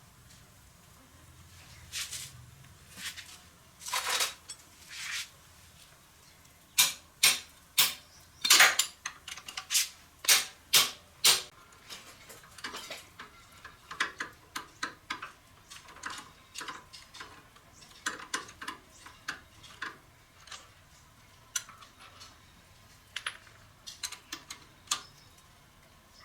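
Irregular clinks and clanks of metal tools and small engine parts being handled and set down, with a quick run of louder clanks about seven to eleven seconds in.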